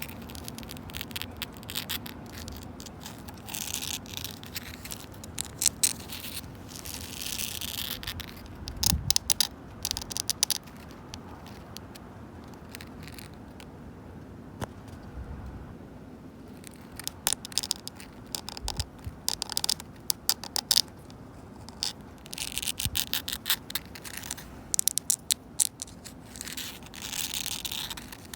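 Long natural fingernails scratching and clawing at a wooden bench in bursts: quick runs of sharp clicks and longer raspy scrapes, with a quieter pause around the middle.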